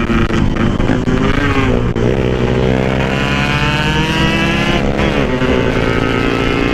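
Yamaha RX King two-stroke single-cylinder motorcycle engine pulling hard under way. The pitch climbs after about two seconds and drops back near five seconds, like a gear change.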